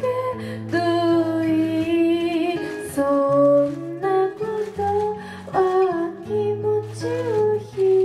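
Music: a sung melody over plucked guitar and a bass line.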